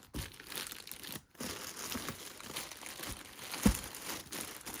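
Packaging and clothing rustling and crinkling as haul items are handled, with one short thump a little after halfway.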